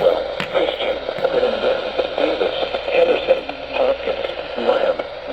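NOAA Weather Radio broadcast played through a receiver's speaker: a muffled voice under crackling static and hiss.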